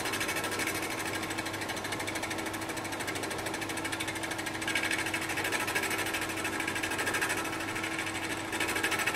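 Small milling machine running with a boring head that is taking a light spring pass down a bore, the quill fed slowly by hand: a steady mechanical hum with a fast, even ticking, a little louder from about five seconds in.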